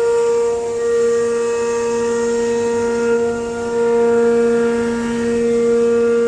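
A CNC router spindle running at speed with a steady, high whine and overtones, its loudness rising and falling gently.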